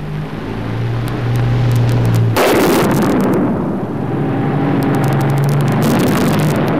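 Battle sounds: a loud explosion about two and a half seconds in, its rumble lasting several seconds, then a rapid run of gunfire near the end, over the steady low drone of an armoured vehicle's engine.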